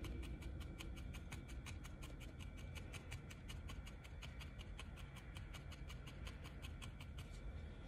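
Felting needle jabbing rapidly into wool over a foam pad, a quick even ticking of about six pokes a second, stopping near the end.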